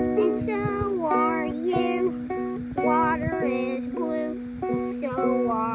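Child strumming a ukulele, with a child's voice singing short rising and falling phrases over the chords.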